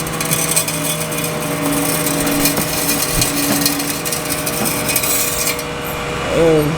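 A car's underside grinding and scraping against a tow truck's bed as it is loaded, a rough rasping noise over a steady hum that stops about five and a half seconds in. It is a bad scrape.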